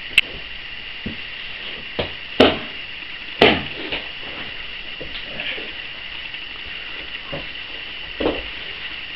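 Scattered sharp thuds and knocks of wrestlers' bodies hitting each other and the mat during a wrestling bout. The loudest two come about two and a half and three and a half seconds in, over a steady high hiss.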